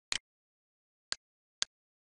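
A regular series of short, sharp clicks, about two a second, with one beat skipped near the start and silence between them.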